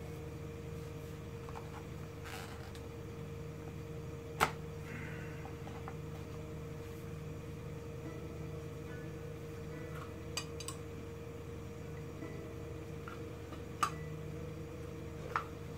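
Steady hum of a propane gas burner, with a few sharp metallic clicks of steel tongs, the loudest about four seconds in.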